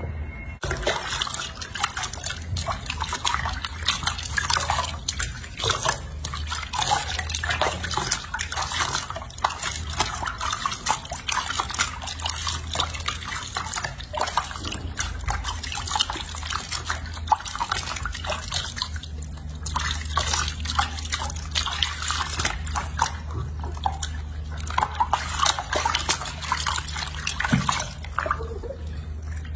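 Water splashing and sloshing in a sink as hands rub and rinse a baby monkey, with irregular drips and splashes over a steady low hum.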